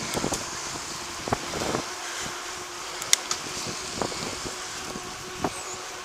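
Road traffic with a car engine running close by, over a steady rushing noise, with scattered light knocks and a sharp click about three seconds in.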